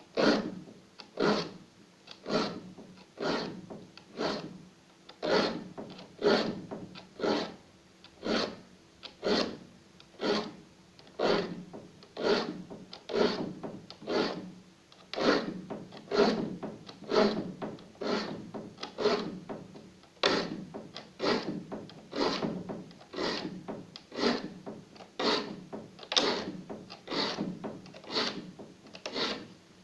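A hand file rasping across the teeth of a wood handsaw to sharpen them, in even strokes of about one and a half a second.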